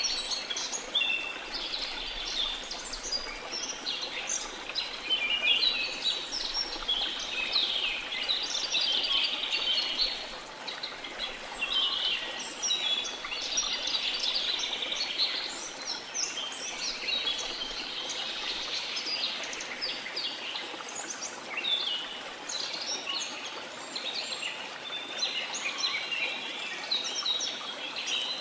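Many birds chirping and singing in a dense, overlapping chorus over the steady rush of a waterfall.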